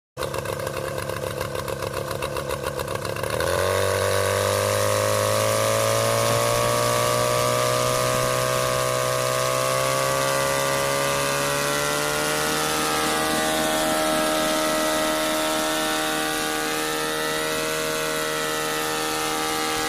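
Small engine of a homemade ultralight backpack helicopter, first running with an even pulsing beat, then revving up about three and a half seconds in and running steadily at high speed, its pitch creeping slowly higher as it drives the rotor.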